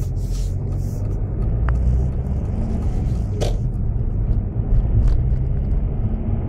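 Car engine and road noise heard from inside the cabin while driving: a steady low rumble, with a few brief clicks.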